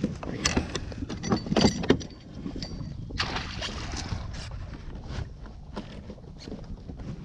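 Knocks, clicks and handling noise on a kayak while a largemouth bass is landed alongside, with a rushing burst about three seconds in.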